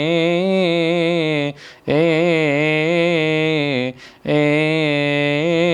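A male cantor chanting a Coptic church hymn melody solo, holding long melismatic notes on the vowels with a wavering, ornamented pitch. The phrases break twice for short breaths, about a second and a half in and again about four seconds in.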